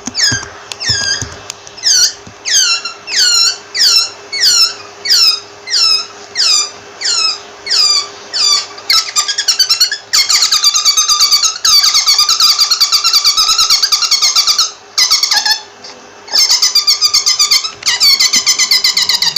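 Rabbit squeaking: a string of high, falling squeaks at about one and a half a second, then from about ten seconds in a fast, dense run of rapid squeaks, broken once by a short pause.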